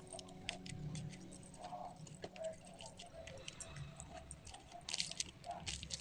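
Faint, irregular light clicks and taps, with a short run of sharper clicks about five seconds in.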